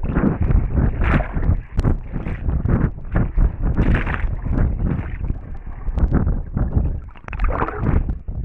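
Water sloshing and splashing around the camera, muffled, in irregular surges, with wind buffeting the microphone.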